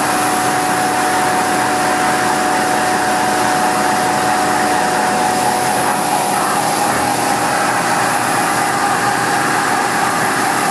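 Mori Seiki MV653 vertical machining center running a milling cycle with a finishing end mill: a steady mechanical running noise with a thin steady tone held through it.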